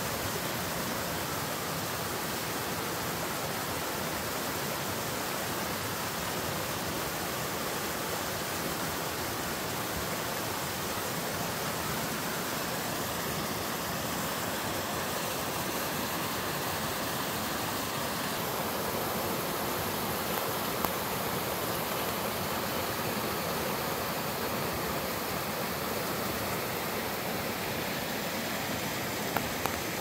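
Small two-tiered waterfall in a rocky mountain stream: a steady, even rush of water pouring over the ledges, with a few light clicks near the end.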